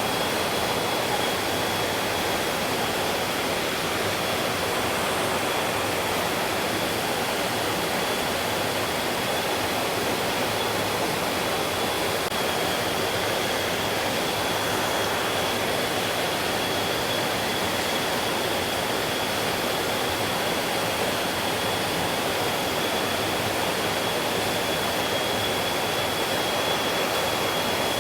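Mountain stream flowing, a steady unbroken rush of water. A thin, steady high tone runs alongside it throughout.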